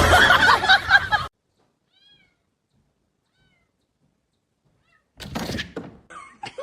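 Cat meowing loudly, several drawn-out meows overlapping, cut off abruptly about a second in; a faint short meow follows, and a brief rustling noise comes near the end.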